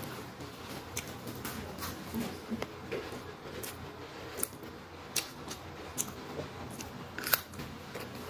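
Close-up eating sounds: a person chewing a mouthful of rice and side dishes, with scattered sharp clicks and smacks, while fingers pick at rice on a paper food wrapping.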